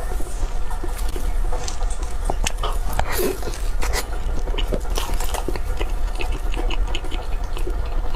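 Close-miked eating sounds: chewing and smacking on soft cake and cream, with many small mouth clicks, over a steady low hum.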